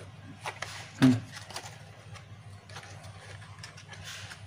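Small cardboard box being handled and pulled apart by hand: scattered light clicks and card rustling, with one louder knock about a second in.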